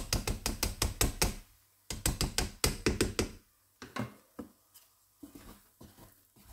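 A potato masher knocked rapidly against the rim of a cooking pot, about eight knocks a second in two runs over the first three seconds or so, shaking off the mashed potato clinging to it. Softer, scattered sounds of a wooden spoon working the mash follow.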